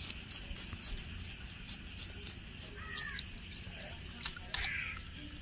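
Knife blade scraping the whitened skin of a pearl spot fish in short scratchy strokes, taking off the skin layer loosened by a soak in tamarind-and-salt water, with the fish worked by hand in the basin water. A bird calls twice in the background, about three seconds in and again a little later.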